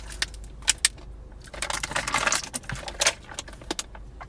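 A quick run of sharp clicks and rattling clatter from small hard objects, densest about a second and a half in.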